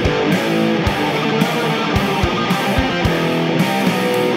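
Channel theme music: guitar over a drum beat, playing under the logo animation.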